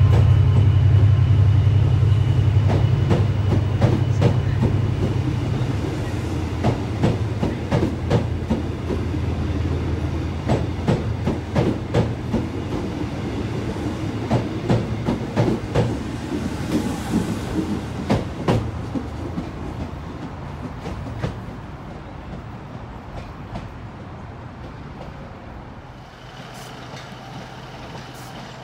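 TransPennine Express Mark 5a coaches rolling slowly along the platform, wheels clicking over rail joints, with a deep engine hum that fades over the first few seconds. The clicking thins out and the sound dies away as the train moves off.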